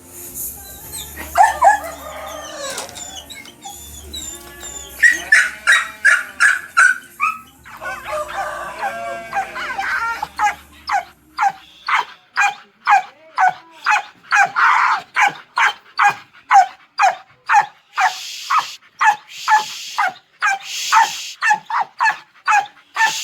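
Hunting dogs whining and yelping in high, bending cries over background music, then barking in a steady run of about two barks a second from about halfway through.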